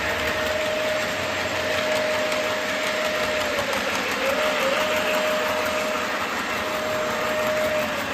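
Model trains running on a toy train layout: a steady rumble of wheels on track with a thin, steady whine that briefly dips twice.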